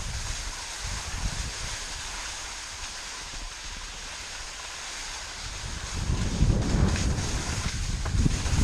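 Skis hissing as they slide over snow on a descent, with wind buffeting the microphone; the low wind rumble grows louder about six seconds in.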